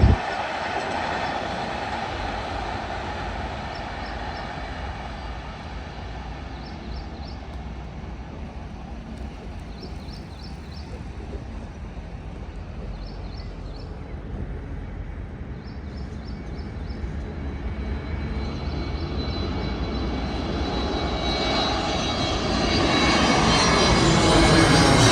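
Airliner on final approach passing low overhead, its engine noise fading away over the first several seconds. Another loud noise builds over the last few seconds.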